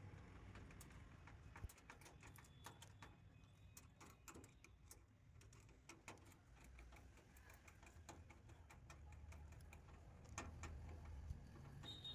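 Faint, irregular small clicks and taps of hands working with small parts and tools, over a low hum.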